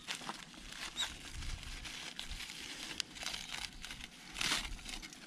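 Paper wrapping around a fire-baked sweet potato crinkling and tearing as it is peeled open by hand, in scattered rustles, louder about four and a half seconds in.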